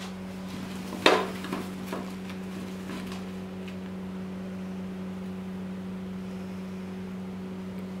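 Handling noises on a paper-covered examination table: one sharp knock about a second in, then a few lighter clicks, over a steady low electrical hum.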